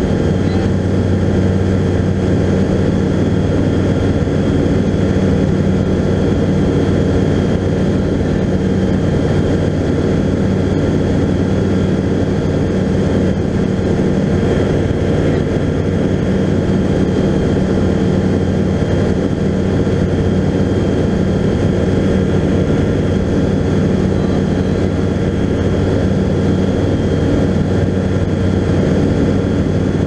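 Skyranger Classic microlight's engine and propeller droning steadily in cruise flight, heard from inside the cockpit, with an even rush of air underneath.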